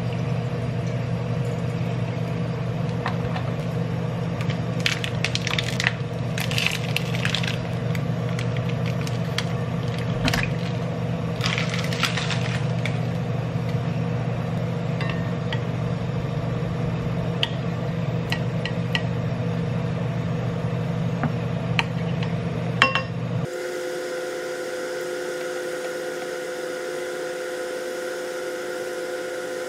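Kitchen sounds at a stovetop pan: scattered clicks and clinks of the pan and utensils over a steady low hum. About 23 seconds in, the hum cuts off abruptly and a different steady hum with higher tones takes over.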